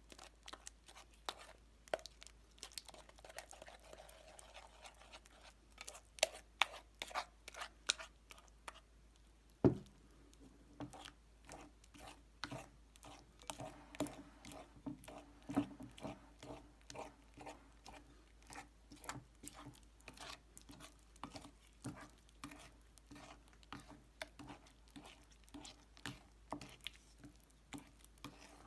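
White slime with polystyrene beads mixed in being played with: a continuous run of small irregular crackles and pops, with one louder knock about a third of the way through.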